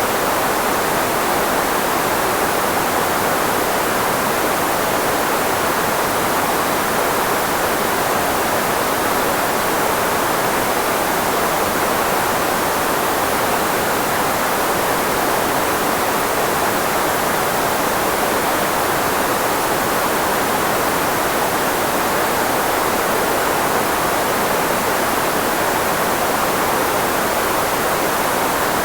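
Steady, unchanging synthetic filtered white noise, shaped to mask the range of the human voice, so it sounds like an even hiss with a full middle, close to a rushing waterfall.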